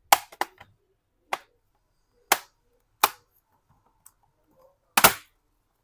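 Plastic retaining clips of an HP 15-fd0030nx laptop's bottom cover snapping loose one after another as the cover is pried open around its edge: about six sharp snaps at irregular intervals, the loudest about five seconds in.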